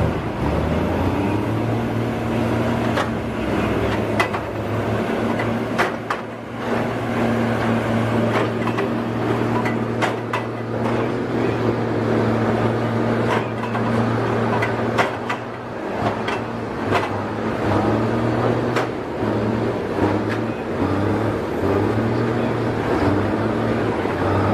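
An engine of heavy wood-cutting machinery running steadily, with scattered sharp knocks and cracks from the work.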